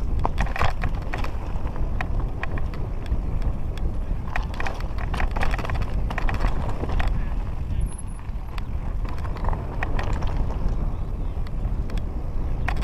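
Mountain bike descending a rocky trail at speed: tyres and frame clattering over loose stones in a run of irregular knocks and rattles, over a steady rumble of wind on the microphone.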